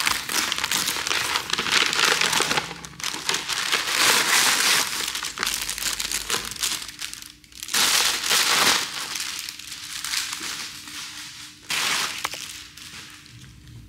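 Crinkling and rustling of paper or plastic packaging being handled close by, in several loud bouts with short pauses between them.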